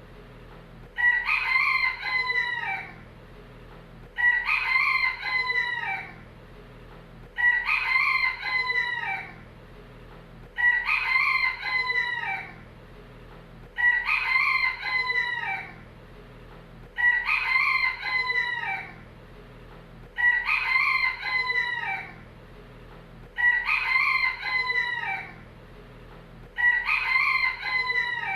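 A rooster crowing over and over: nine crows, evenly spaced about three seconds apart, each lasting about two seconds.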